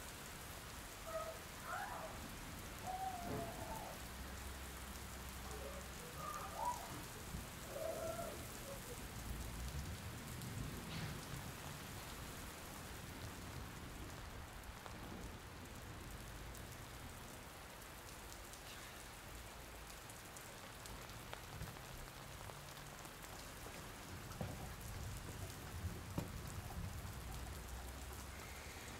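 Steady rain falling, with a few faint wavering sounds in roughly the first eight seconds.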